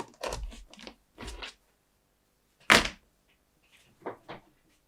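Handling noises as multimeter test leads are swapped for a longer one: a few soft thumps in the first second and a half, one sharp click about three seconds in, then two light taps near four seconds.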